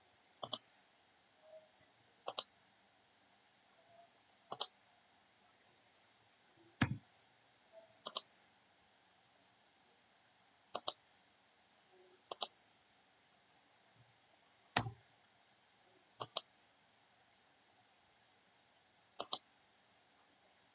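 Computer mouse clicking, mostly in quick double clicks, about ten times at irregular intervals, over faint room tone.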